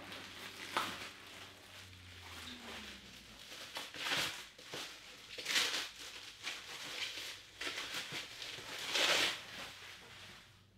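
Rustling and crinkling of packing material as items are pulled out of a cardboard box, in several short bursts, the loudest about four, five and a half and nine seconds in.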